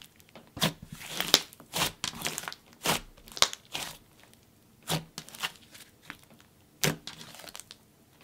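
Thick pink jelly slime, softened with clay into a fluffy texture, being pressed and squished by hand, giving irregular sticky clicks and small bubble pops. The pops come close together in the first few seconds, then sparser, with a few more around five and seven seconds in.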